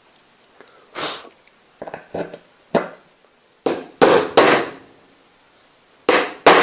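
Claw hammer striking a carriage bolt to seat it in a hole through a plywood crosscut-sled base. About ten sharp knocks in irregular groups, loudest around four seconds in and near the end.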